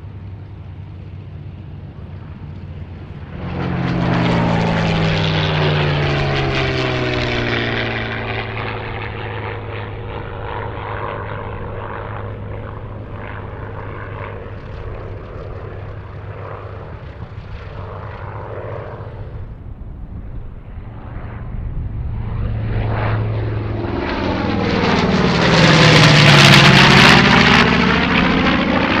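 WWII piston-engined fighters passing along the runway at high power, one after another. One comes close about three to four seconds in, its engine note dropping as it goes by. A louder pass, a Grumman F8F Bearcat, builds up near the end.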